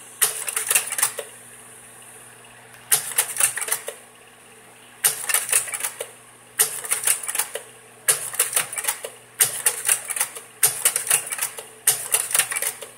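Kodak Carousel 650H slide projector changing slides: eight clickety-clack bursts of rapid clicks, each about a second long, coming closer together toward the end, over a steady low hum.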